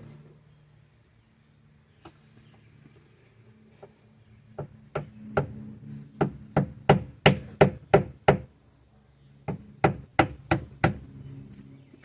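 Sledgehammer striking a flathead screwdriver to drive an old door hinge bushing out of a Jeep Wrangler TJ door hinge: sharp strikes about three a second, a run of about a dozen, then five more after a short pause.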